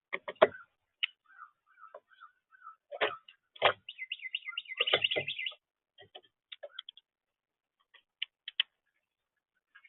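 Birds at a feeder: irregular sharp taps and clicks, as of pecking and seed handling, mixed with short high chirps. A brief burst of twittering comes about four to five seconds in.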